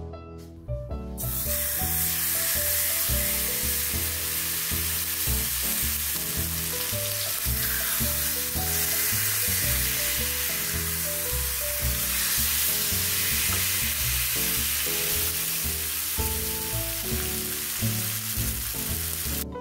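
Tandoori-marinated chicken legs sizzling in hot mustard oil in a frying pan. The sizzle starts suddenly about a second in, as the chicken goes into the oil, and holds steady over background music.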